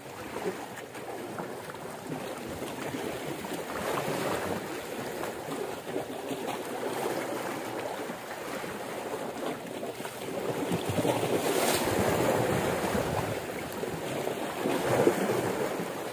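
Sea waves washing against shore rocks, with wind buffeting the microphone; the wash swells louder about eleven seconds in.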